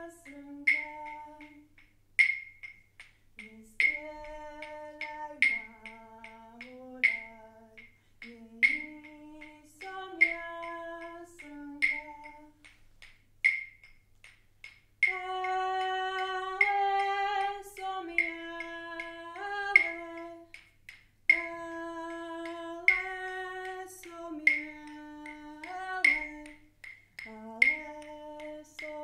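A woman singing a slow, wordless melody in long held notes, stepping between pitches. A sharp click repeats steadily about every one and a half seconds.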